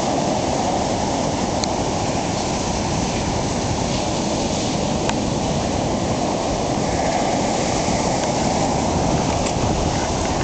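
Ocean surf breaking and washing up the beach: a steady, even rush of waves.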